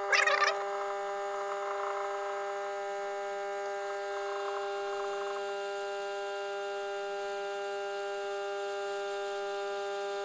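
Hot air gun running with a steady electric hum, its nozzle held on a DVR circuit board to desolder the DC power jack.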